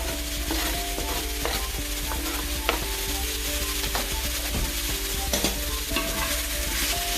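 Italian sausage and chopped vegetables sizzling in a hot cast-iron skillet as they are stirred, with a few sharp knocks of the utensil against the pan.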